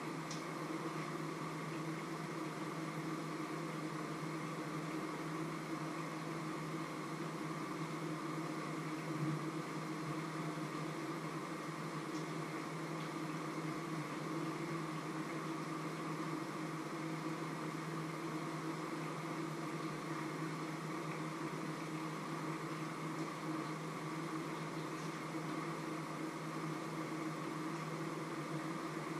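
Steady machine hum, like a running fan or motor, over an even hiss, with one brief soft knock about nine seconds in.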